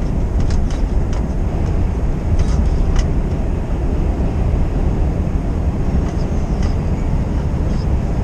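Lorry cab noise: the truck's diesel engine and the road make a steady low rumble, with a few faint light clicks in the first few seconds.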